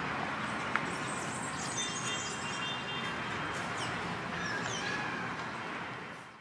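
Steady outdoor background noise with a few faint bird chirps in the middle, fading out near the end.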